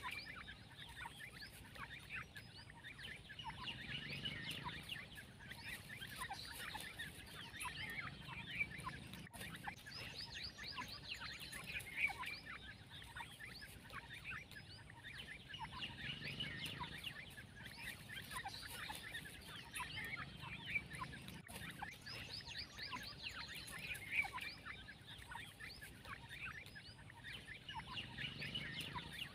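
A flock of young grey francolins chattering: a dense run of short, high chirps and peeps from many birds at once, swelling and easing every few seconds.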